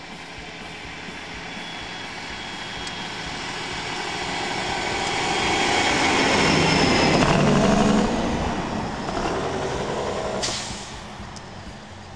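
International tractor-trailer driving past on a snowy road. Its engine and road noise grow louder as it approaches, peak as it passes about six to eight seconds in, then fade as it pulls away, with a short hiss about ten and a half seconds in.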